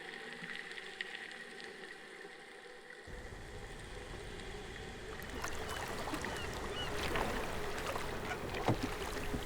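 Water sloshing and lapping, with a deeper rush coming in about three seconds in and scattered clicks and crackles growing from about halfway.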